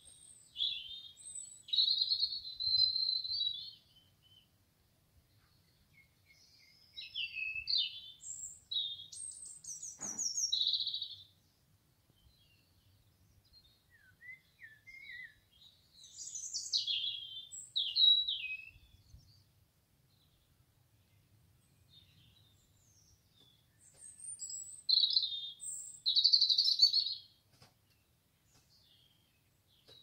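Common nightingale singing: phrases of fast trills and whistled notes, about five of them separated by pauses of a few seconds.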